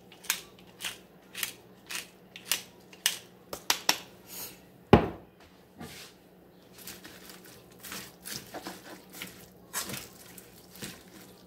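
A wooden pepper mill being twisted, grinding black pepper in short crunchy bursts about twice a second for the first three to four seconds. A single sharp knock follows about five seconds in. Then comes the soft rustle and scrape of a spatula turning shredded raw cabbage in a metal pan.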